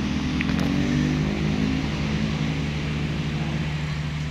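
Engines running: a steady low hum, with a second engine note shifting in pitch during the first two seconds.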